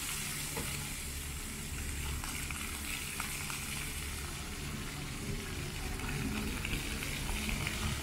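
Fountain jets splashing: a steady hiss of spraying and falling water.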